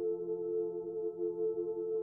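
Ambient background music: a slow, steady drone of several sustained tones.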